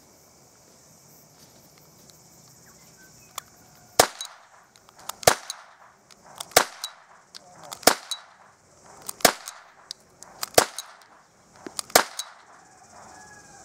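A West German Perfecta starter pistol firing 6mm .22 Flobert blanks: seven sharp shots about 1.3 seconds apart, starting about four seconds in.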